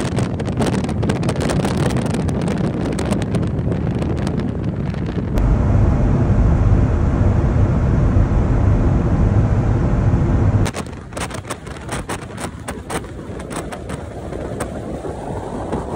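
Wind buffeting a phone's microphone over the road noise of a car at highway speed, with crackles from the gusts. The rumble steps up loudly about five seconds in and drops back sharply about ten seconds in, at cuts between clips, and a faint tone rises slowly near the end.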